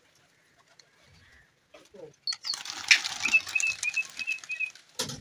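A flock of pigeons taking off together about two seconds in: a dense rush of wingbeats and sharp wing claps, with a run of short high chirps over it and one last sharp clap near the end.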